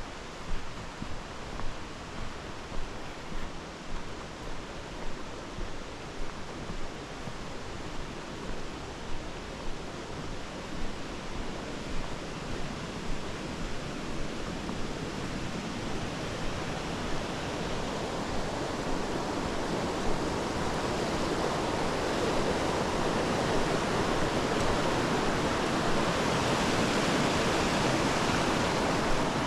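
Footsteps at a steady walking pace on a trail, over the rush of a mountain creek. The water grows louder through the second half until it covers the steps.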